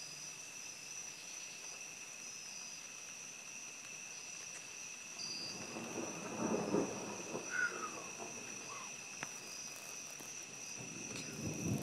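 Thunder rumbling, building about five seconds in and fading a few seconds later, with another rumble starting near the end. Night insects call steadily underneath at two high pitches.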